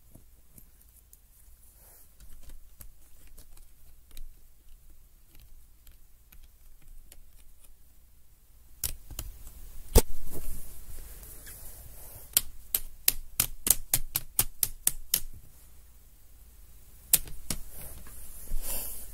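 Sharp plastic clicks from a Lego Technic Porsche 99X car being handled. A few come singly, then a quick run of about four a second in the middle, and a few more near the end.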